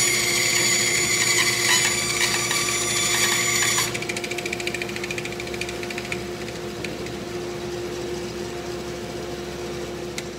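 Shop Fox bandsaw cutting through the end of a thick cedar block, a steady high whine under load. The cut finishes about four seconds in, and the saw then runs on without load, quieter.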